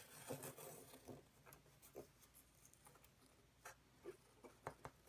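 Quiet, irregular soft clicks, creaks and scratches of a laser-cut 1/8-inch Baltic birch plywood living hinge being bent by hand into a tight curve, its cut slats shifting and rubbing under the fingers. The loudest clicks come just after the start and in a cluster near the end.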